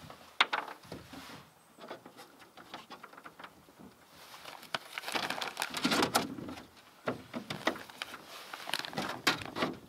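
Scattered light clicks, scuffs and rustles of a puppy moving about in a canoe, busiest about halfway through and again near the end.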